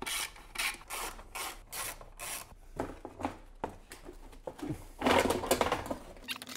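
A thin embossed-metal underbody heat shield being worked loose and pulled down from a car's floor pan. It gives a run of short rasping scrapes, then a louder, longer scrape about five seconds in.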